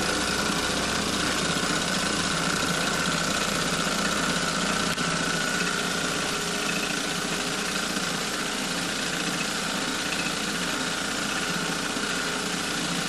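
Several small school-made model steam engines running together: a steady, dense mechanical running noise with one constant higher tone held above it.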